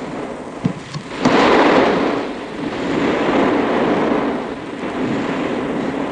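Sea surf breaking on a sandy beach, a noisy wash that swells up about a second in and then rises and falls again in slower waves, with a short knock just before the first swell.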